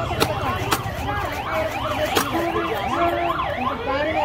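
An emergency-vehicle siren yelping in fast rising-and-falling sweeps, about three a second. A few sharp knocks of a wooden stick striking a knife blade chopping through fish cut through it.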